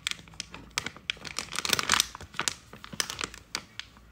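Soft plastic pack of makeup remover wipes crinkling and clicking as it is handled and a wipe is pulled out through its opening, with a denser spell of crinkling about two seconds in.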